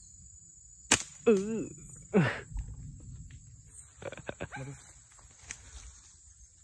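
Night insects trilling steadily with a high, pulsing chirp. About a second in comes one sharp click, followed by two short pitched cries, the first wavering and the second falling, and a few quick knocks around four seconds in.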